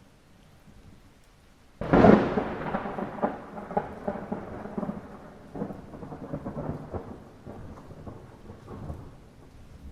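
Light rain hissing steadily, then about two seconds in a sudden close thunderclap that crackles and rolls on, fading gradually over the next several seconds.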